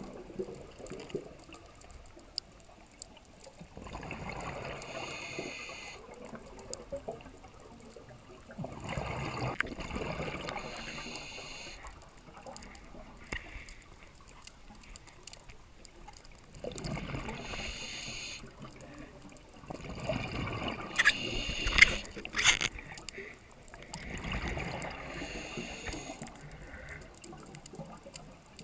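Scuba breathing underwater through a regulator: bubbling exhalations and hissing breaths in surges every few seconds, heard through a camera housing. A few sharp clicks about three quarters of the way through are the loudest sounds.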